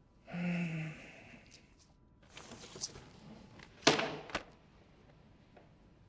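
A short low hum-like grunt from a man near the start, then paper rustling and a sharp thunk about four seconds in as a sheet of paper on a folder is put down on a desk, with a lighter tap just after.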